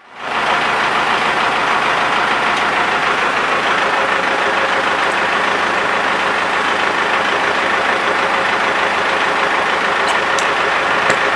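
Fire engine's motor running steadily, a loud, even noise, with a few light clicks near the end.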